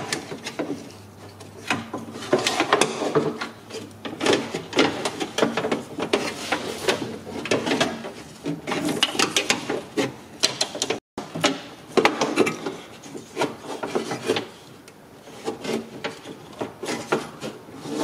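Replacement window regulator in a BMW E46 front door being worked by hand into the door cavity: irregular scraping, rubbing and clunking of metal against the door's sheet-metal inner panel, with a short dropout about eleven seconds in.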